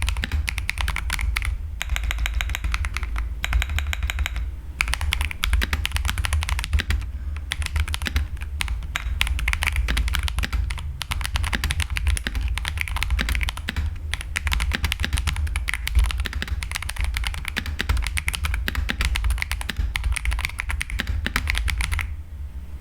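Fast continuous typing on an Akko PC75B mechanical keyboard with stock, unmodified CS Jelly Silver switches, a dense run of keystroke clicks with a few brief pauses, over a steady low hum. The typing stops near the end.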